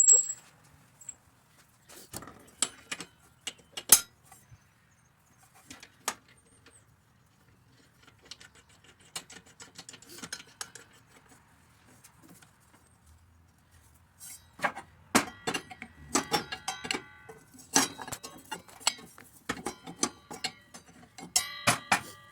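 Metal hand tools clinking and rattling as they are picked up and handled. The clinks are sparse at first, then come thick and fast with short metallic rings from about halfway through.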